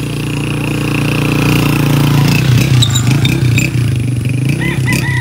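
A motor vehicle's engine coming along the road, growing louder to a peak about halfway through, then easing slightly.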